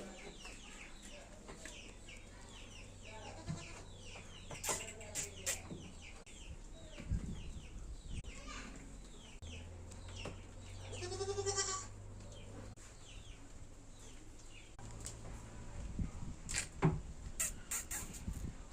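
Parrot chirping over and over in short, quick downward notes, with one longer wavering call about eleven seconds in and a few sharp clicks.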